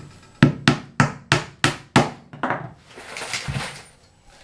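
A hammer striking about eight quick blows, roughly three a second, fastening metal strapping for radiant floor-heating cable to the subfloor, followed by a quieter scraping.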